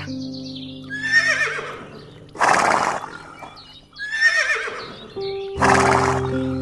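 A horse whinnying twice, each wavering, falling whinny followed by a short harsh blow, over background music with steady sustained tones.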